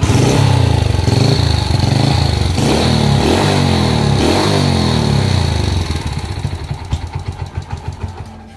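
Honda Win 100's single-cylinder four-stroke engine running loudly, its revs rising and falling a few times, then dropping back to a quieter, uneven idle about six seconds in.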